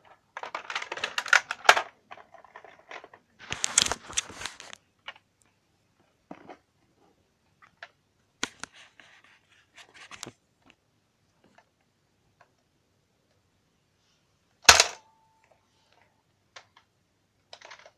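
Nerf toy blaster being handled: two bursts of rustling and scraping, then scattered sharp clicks, and one loud sharp crack about fifteen seconds in, followed by a short faint tone.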